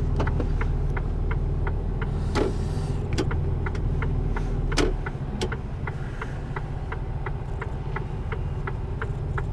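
Mercedes-Benz Antos 1824 lorry's six-cylinder diesel engine running at low revs, heard from inside the cab, with a regular ticking about three times a second and two louder clicks.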